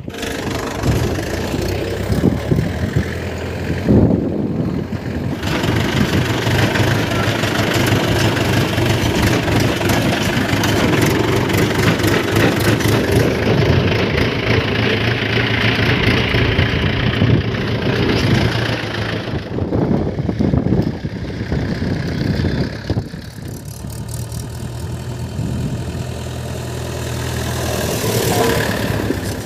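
Mahindra 575 DI tractor's diesel engine running steadily under way, with sudden shifts in loudness and tone a few times.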